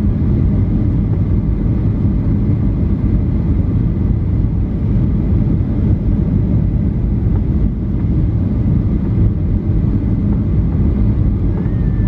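Steady cabin noise inside a Japan Airlines Boeing 737 on approach: a constant low rumble of its CFM56 engines and the airflow over the fuselage. A faint falling whine comes in near the end.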